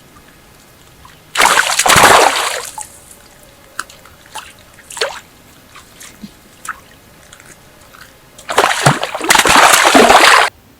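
Water splashing in two loud bouts, one about a second and a half in and a longer one near the end that stops abruptly, with small drips and plops between them.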